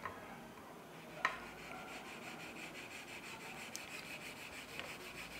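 Kitchen knife sawing slowly through a thick, hard dark-chocolate Santa figure: a faint, steady rasping, with one sharp click about a second in.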